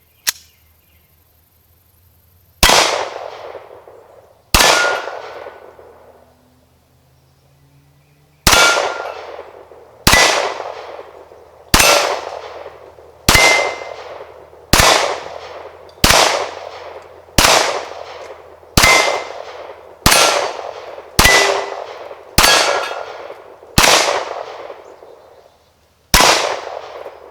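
Glock 17 Gen 4 9mm pistol fired about fifteen times at a slow, even pace of roughly one shot every second and a half, each shot followed by the ring of a steel target being hit. The first two shots come about two seconds apart, then there is a four-second pause before the steady string begins.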